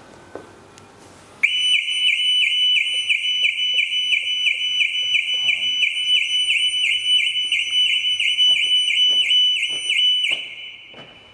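2017 VW Arteon's anti-theft alarm siren going off: a loud, fast-repeating rising whoop, about three a second. It starts abruptly about a second and a half in and stops near the end.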